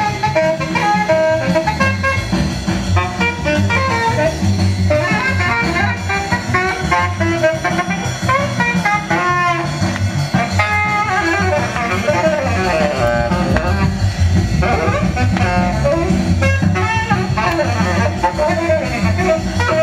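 Instrumental jazz music playing, with a saxophone melody over a bass line.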